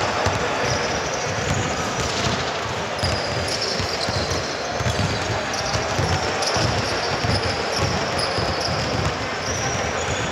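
Basketball bouncing on a court floor: a steady run of dull thumps, several a second.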